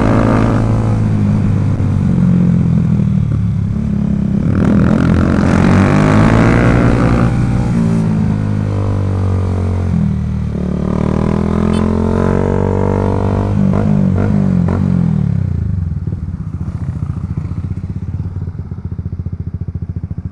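Motorcycle engine under way, its pitch climbing and dropping back several times as it is revved up through the gears. For the last few seconds it falls to a quieter, lower, steady running.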